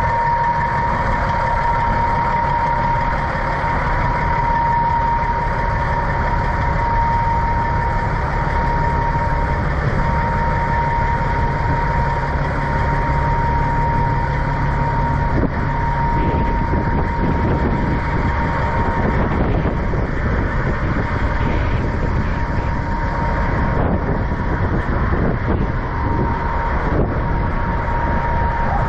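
Semi truck's diesel engine idling steadily with a low rumble, and a steady high-pitched whine running through it.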